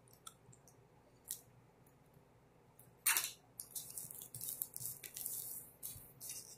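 Crinkling and rustling of a shrink-wrapped box set's plastic packaging being handled, starting about three seconds in with one short, louder rustle, then faint, crackly crinkling.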